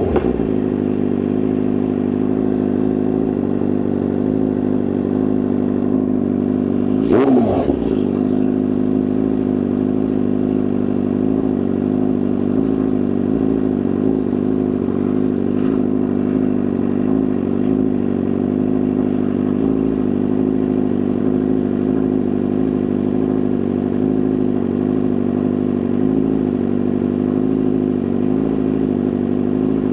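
2024 BMW S1000RR's inline-four engine idling steadily through a titanium exhaust, with one short throttle blip about seven seconds in.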